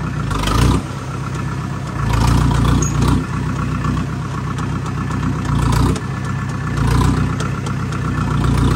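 A vehicle engine running steadily, with louder swells every second or two.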